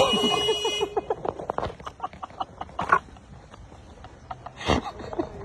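A car horn that has been swapped for a different, non-original one sounds a steady buzzy note that cuts off under a second in. It is followed by a quick run of short gliding tones over the next second and two short bursts later.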